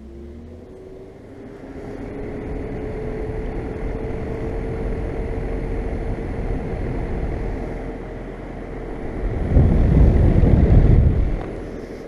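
Lennox XC25 5-ton variable-capacity air conditioner condensing unit spinning up: a tone rises over the first couple of seconds and levels off while the rush of air through the fan builds to a steady run. Near the end a loud low rumble swells for about two seconds, as air from the fan blows across the microphone.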